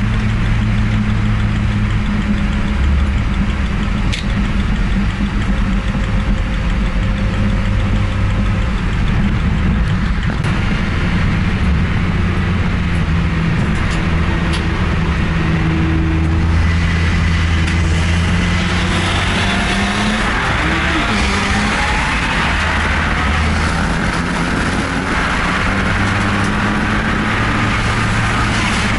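Car engine running at road speed with road and wind noise. The engine note holds steady and changes pitch in steps. From about two-thirds of the way in there is more hiss and some rising tones.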